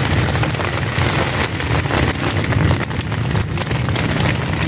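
Wind buffeting the microphone, a steady low rumble, with many small sharp taps scattered through it.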